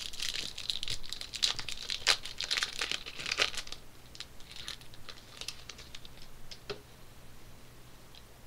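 A hockey card pack's wrapper being torn open and crinkled, dense for the first few seconds. Then sparser clicks and rustles as the cards are handled.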